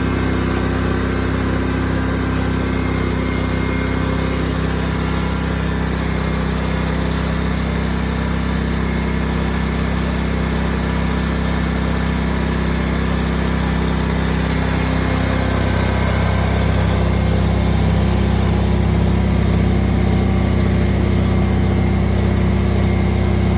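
Riding lawn mower engine running steadily. Its note shifts and gets a little louder about two-thirds of the way through.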